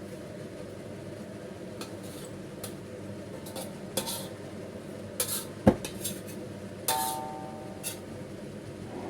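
Kitchen utensils clinking and knocking against a cooking pot, about half a dozen separate strikes, the loudest a knock a little past halfway and one ringing clink soon after, over a steady low hiss.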